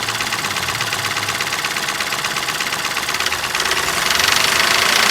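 Mahindra TUV300's three-cylinder diesel engine running with a rapid ticking knock, revved a little so it gets louder about three and a half seconds in. The tick is the engine's fault noise, which the mechanic places in the top end on the camshaft side rather than the crank or pistons.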